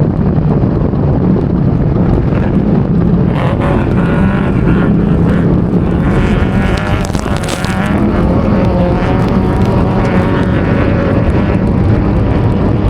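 Off-road race vehicle's engine running hard at speed, heard from onboard, with wind and road noise under it. About seven seconds in the engine eases off amid a spell of clicks and clatter, then picks up again.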